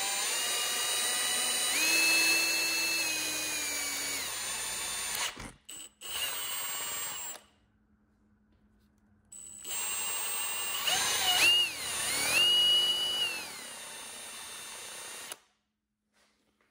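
Cordless drill with a large twist bit boring into the end of a handlebar grip held in the hand. The motor whine rises and falls in pitch with the trigger, stops about five seconds in, runs briefly again, pauses for about two seconds, then runs for about six seconds more before stopping.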